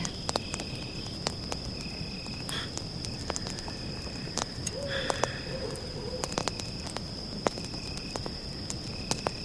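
Campfire crackling in irregular sharp clicks over a steady high insect trill, with short high chirps repeating every second or so and a brief low call about halfway through.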